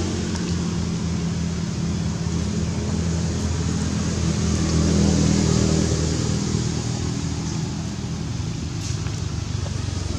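A motor vehicle's engine running with a steady low hum that grows loudest about halfway through and then fades.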